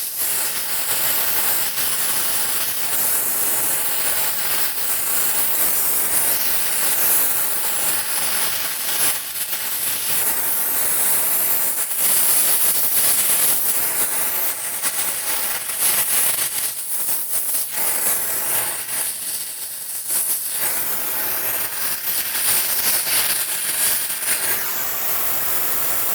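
Gas welding torch flame hissing steadily during brass brazing of a pipe joint, with the flame momentarily weaker a couple of times.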